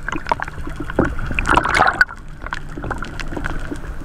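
Seawater sloshing and gurgling around a camera bobbing half-submerged at the surface, with small splashes and clicks and a louder rush of water about a second and a half in.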